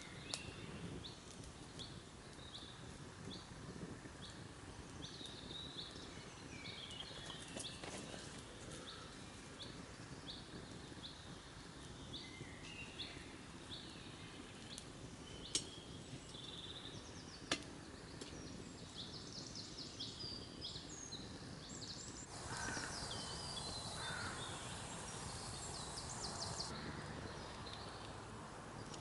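Faint woodland ambience: small birds singing in short, repeated high chirps, with two sharp cracks around the middle. About three-quarters of the way through, the birdsong becomes busier and higher.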